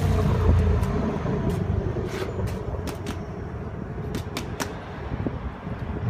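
Low rumble in the first second, then irregular sharp ticks that come more often toward the end: water dripping from a freshly hosed air-conditioner filter onto paving.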